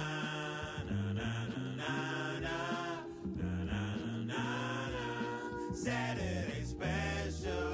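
Background music: a song with a sung vocal line over a low bass part.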